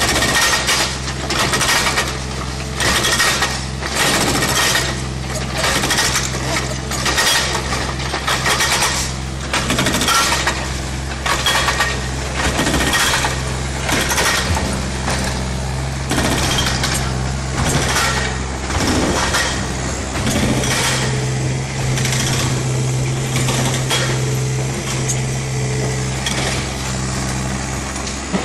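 Mini excavator's hydraulic breaker hammering concrete in repeated bursts of blows, over the steady running of the excavator's diesel engine. The hammering thins out in the last part, leaving mostly the engine.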